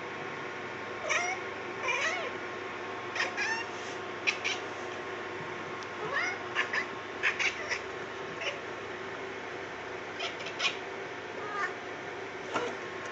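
Tortoiseshell cat making about a dozen short chirps and chattering calls in quick separate bursts: the excited chatter a cat makes at something it sees but cannot reach.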